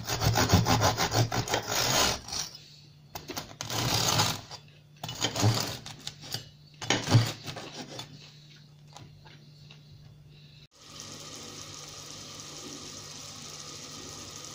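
Kitchen knife sawing through a crusty home-baked herb loaf on a plastic cutting board, in several bursts of quick back-and-forth strokes that grow weaker after about eight seconds. About eleven seconds in, the sound changes suddenly to a steady hiss with a low hum.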